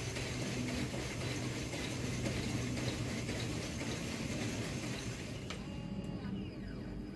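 Electric motor of a CNC metal-cutting saw running with a steady mechanical noise. About five and a half seconds in there is a sharp click and the noise drops away as the motor is switched off and winds down.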